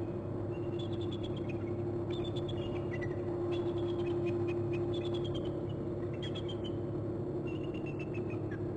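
Bald eagle giving its high, thin chattering call in repeated bursts of quick notes that fall slightly in pitch, as it lands on a branch. A steady hum runs underneath.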